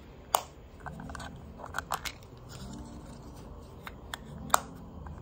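Sharp clicks and light taps of a small hard plastic contact lens case being handled in the fingers, the two loudest about a third of a second in and near the end.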